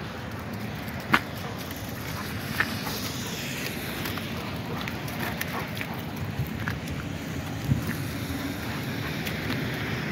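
Steady outdoor noise of wind on the microphone and road traffic, broken by a few sharp knocks: the loudest about a second in, others at about two and a half and near eight seconds.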